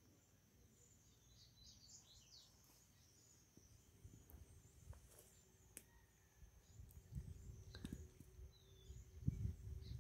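Faint outdoor garden ambience: a few short bird chirps about two seconds in, over a steady high-pitched whine. Low, uneven rumbles and a few sharp clicks come in the second half.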